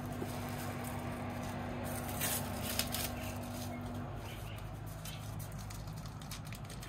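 Faint rustling and crinkling of oily wrapping being peeled off a kukri blade by hand, with a few soft crackles, over a steady low hum.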